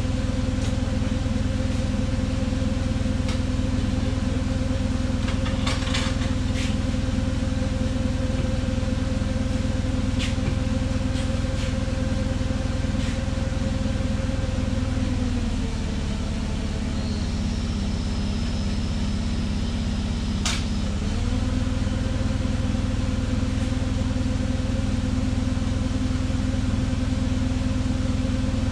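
Forklift engine running steadily. Its pitch sags for about five seconds in the middle, then comes back up, with a faint high whine during the dip. A few light clanks and knocks are heard over it.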